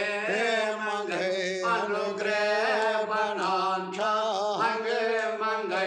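A man singing a Kashmiri song solo, his voice bending and wavering through long held notes with short breaks between phrases, over a steady low drone.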